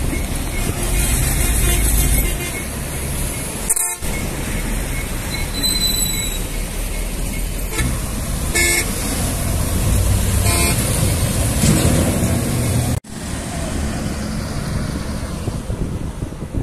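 Buses passing at speed on a highway: a steady rumble of diesel engines and tyres, with several short horn blasts over it.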